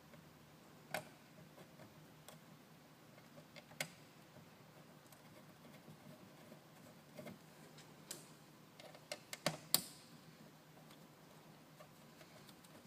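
Faint, scattered clicks and taps of small screws and a hand screwdriver as a fan cover plate is screwed on, with a quick run of several clicks about nine seconds in.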